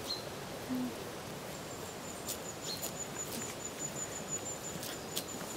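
Alpaca giving a short, soft hum about a second in, over a steady hiss of light rain with scattered sharp ticks.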